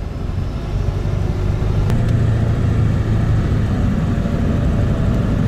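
Pickup truck driving at highway speed, heard from inside the cab: a steady low engine drone with road and tyre noise, a little louder from about two seconds in.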